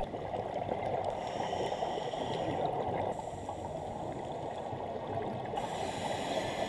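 Steady underwater ambient noise: a muffled watery hiss that sits mostly in the low range, with no distinct events.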